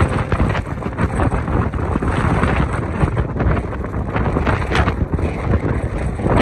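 Wind buffeting the microphone: a loud, uneven rushing noise, heaviest in the low rumble.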